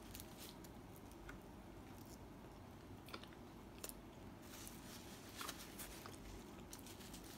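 Faint chewing of a flaky croissant pastry with egg and sausage, with a bite at the start and scattered soft crunches and mouth clicks over a low hiss.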